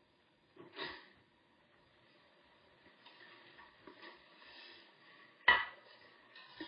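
A small plastic food bowl set down onto a plastic dish with one sharp clack about five and a half seconds in, the loudest sound, after a stretch of soft rustling and footsteps as a person walks in. A brief duller knock comes about a second in.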